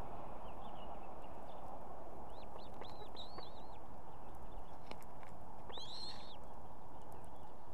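Osprey chick calling while being fed: short, high, arched chirps, a run of them about two to three and a half seconds in and a louder one about six seconds in, over a steady low background rush.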